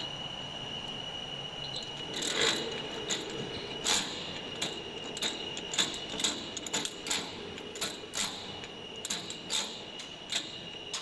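Metal parts and hand tools clicking and clinking irregularly while the tube loader of a tube loading box is adjusted for height, with louder knocks about two and a half seconds in and again near four seconds. A steady high-pitched whine runs underneath.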